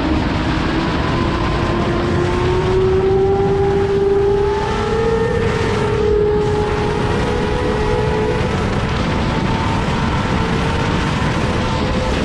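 Yamaha R6 inline-four engine through an Akrapovic exhaust, under way at speed, with heavy wind noise. Its pitch climbs slowly over the first five seconds, dips briefly around six seconds in, then holds steady.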